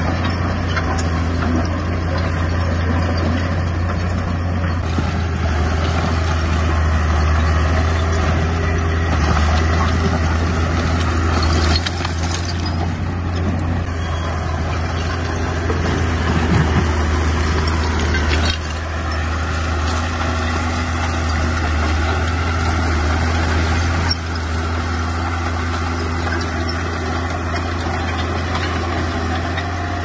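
Old Komatsu bulldozer's diesel engine running steadily with a deep drone while the machine works dirt. The engine note shifts a few times, about twelve, eighteen and twenty-four seconds in.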